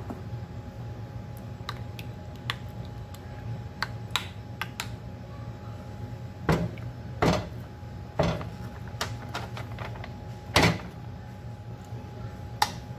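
Kitchen handling sounds: scattered light clicks and four louder short knocks or clatters, as from a glass bowl and utensils being handled beside the stove, over a steady low hum.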